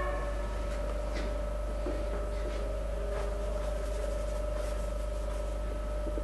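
Faint, irregular scratching and dabbing of paint being worked onto a stretched canvas, over a steady electrical hum.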